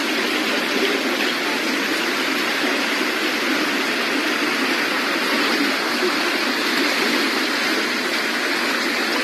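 Floodwater rushing in a steady, loud wash of noise with no let-up.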